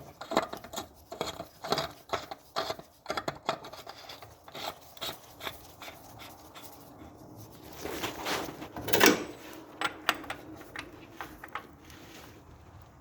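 Plastic oil filter housing cap being threaded back on by hand, with irregular short scrapes and clicks of plastic rubbing on plastic and a louder stretch of rubbing about eight to nine seconds in.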